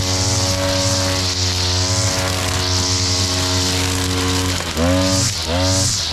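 Backpack brush cutter with a flexible drive shaft running at high speed, its trimmer line cutting through grass and dry banana leaves. Near the end the throttle is eased off and opened again a few times, so the engine's pitch dips and rises.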